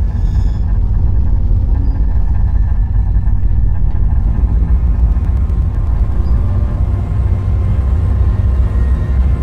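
Low, steady rumbling drone from an electronic soundtrack score, heavy in the bass, with faint higher tones starting to come in near the end.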